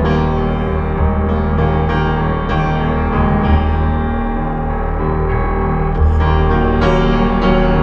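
Slow background music led by piano, with chords held for a second or more before the next notes are struck.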